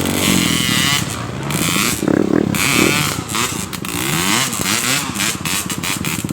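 Trail motorcycle engine revving up and down under load, its pitch rising and falling several times.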